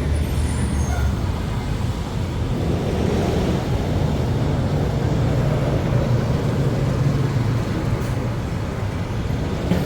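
Street traffic: motor vehicles running, a steady low engine hum over road noise.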